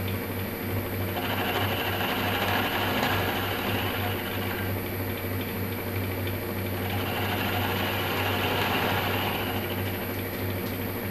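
Milling machine running with a steady low hum, and a higher hiss over it that swells and fades twice.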